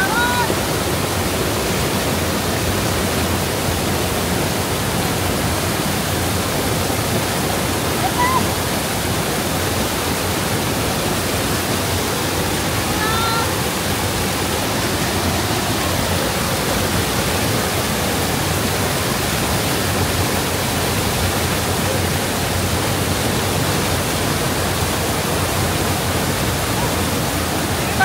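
A waterfall rushing loudly and steadily, an even wash of noise across all pitches.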